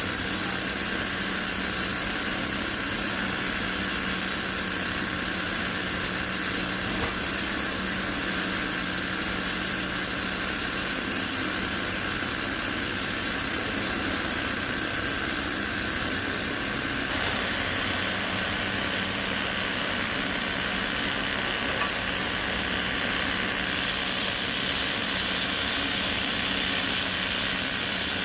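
Heavy diesel machinery engine running steadily at a constant pitch, with no distinct impacts. The tone brightens slightly about two-thirds of the way through.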